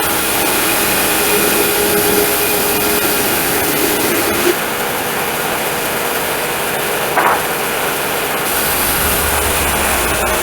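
Homemade sawmill running steadily, its engine and blade cutting through a beetle-kill pine log. The tone shifts about halfway through, and there is a brief higher note about seven seconds in.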